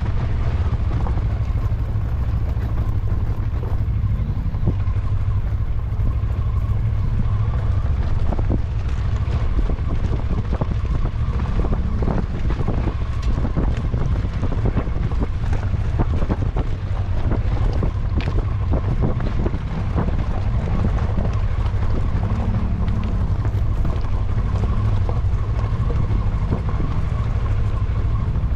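A vehicle driving over rough off-road ground: a steady low rumble with frequent short knocks and rattles, and wind noise on the microphone.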